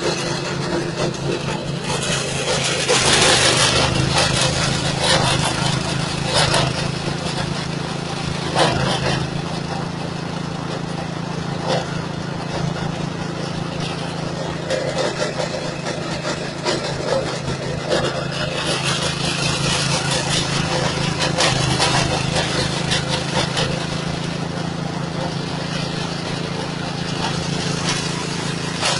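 Straw and grass chopper-grinder, driven by a 6.5 hp engine, running steadily while dry rice straw is fed in and milled to fine dust. The noise swells in louder spells about 3, 6 and 9 seconds in.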